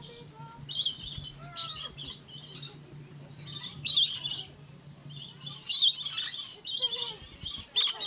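Lorikeets giving shrill, rasping screeches in quick repeated bursts, about one every half second. A low steady hum underneath stops about two-thirds of the way through.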